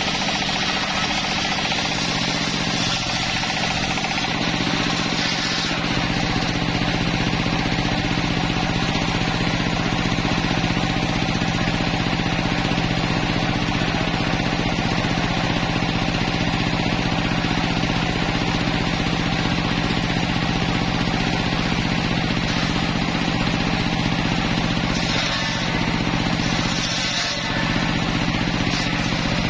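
Homemade circular sawmill running steadily, its drive humming under the whir of the large spinning blade. The blade cuts into a log in the first few seconds and again a few seconds before the end, adding a brighter rasping hiss.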